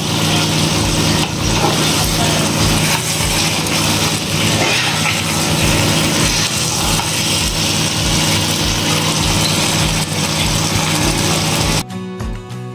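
A steady hiss and low hum over a soft beat of background music, about two beats a second. A little before the end the hiss cuts off suddenly and the music comes through clearly.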